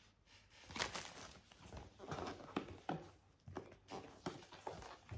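Packaging and plastic parts being handled: an irregular run of light rustles, crinkles and taps, beginning about a second in.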